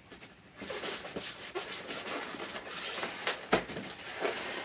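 Styrofoam packing foam rubbing and creaking under the hands as it is worked loose. A continuous rustle is broken by a few sharp clicks, the loudest about three and a half seconds in.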